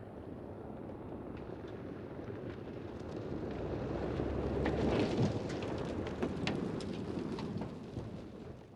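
Mercedes GLC SUV driving hard past on a loose dirt and gravel track. Its tyres spray grit and stones that crackle and patter. The sound builds to its loudest about halfway through as the car passes close, then dies away.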